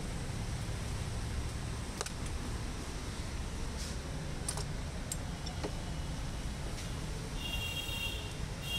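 Steady workshop background hiss and hum with a few faint metallic clicks from hand tools and small parts on a diesel common-rail injector, and a short, high, pulsing beep near the end.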